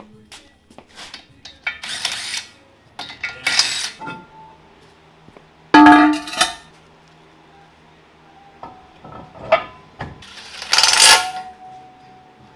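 Hand work on a car: irregular bursts of rustling and scraping with sharp clanks, the loudest about six seconds in and a longer scrape near eleven seconds, over faint background music.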